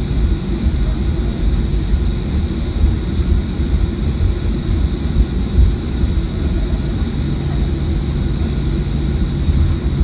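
Cabin noise of a Boeing 737-800 taxiing after landing: a steady low rumble from the CFM56 engines at taxi power and the aircraft rolling over the taxiway, with a faint high whine.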